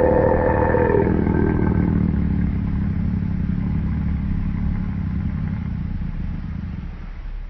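Custom-made elephant sound effect, mixed from other animal and creature recordings: a pitched call that bends up and falls away, ending about a second in, followed by a long low rumble that slowly fades out.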